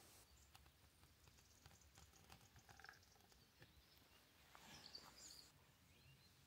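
Near silence: faint outdoor background with a few soft ticks and a faint high chirp about two thirds of the way in.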